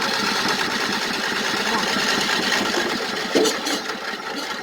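Old riding lawnmower engine being cranked over by its electric starter, a fast steady whirring chug, with a brief louder clack about three and a half seconds in.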